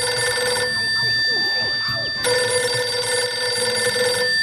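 Telephone ringing: one ring stops just under a second in, and the next starts a little after two seconds in and rings for about two seconds. A steady high tone runs underneath.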